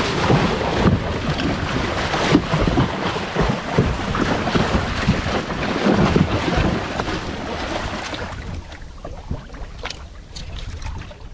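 A large oilfish thrashing at the surface beside the boat's hull, throwing up heavy splashing water. The splashing dies down about eight seconds in, leaving a few knocks and small splashes.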